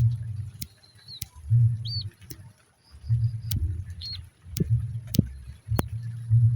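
Birds calling: a low cooing sound repeats in phrases of about a second, with a few short high chirps and several sharp clicks in between.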